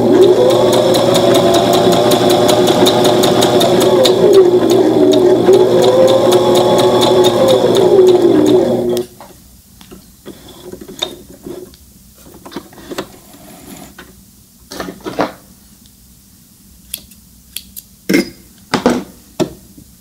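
Brother ST371HD sewing machine stitching a straight seam through two layers of thin knit: rapid, even needle strokes over a motor whine that rises and falls twice in pitch as the speed changes, stopping suddenly about nine seconds in. After it, a few brief, quieter handling sounds.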